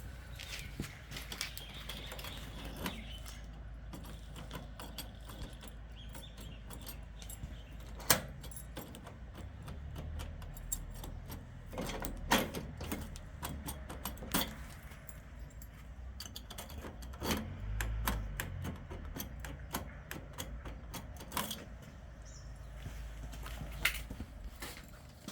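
A key on a ring jangling and being worked in a door lock, with irregular clicking from the lock mechanism and a few louder sharp clacks spread through.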